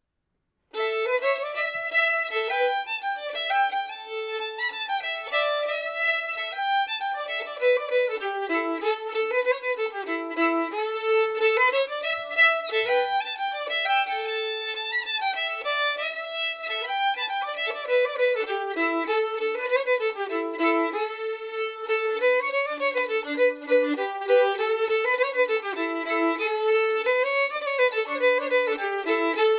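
Solo fiddle playing an old-time Appalachian-style fiddle tune in the key of A, in standard GDAE tuning. It starts just under a second in, out of silence, and runs as a lively bowed melody.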